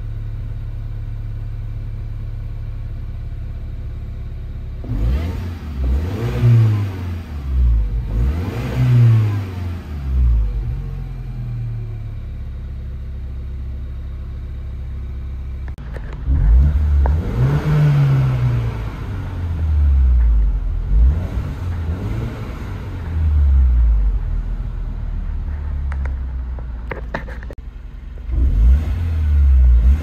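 Mini Cooper S R56's turbocharged N18 four-cylinder engine on a test drive, running on new spark plugs and coil packs fitted to cure a misfire. Engine pitch climbs and drops again and again as the car accelerates through the gears in three runs: about five seconds in, about halfway through and near the end. Between the runs it holds a steadier tone.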